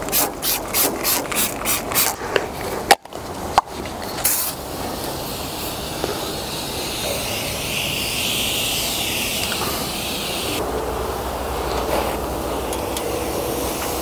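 Trigger spray bottle of degreaser squirted in a quick series of pumps, about three a second, for the first couple of seconds. After a couple of sharp clicks comes a long steady hiss of a foaming aerosol degreaser sprayed onto bare sheet metal, which drops in level about ten and a half seconds in.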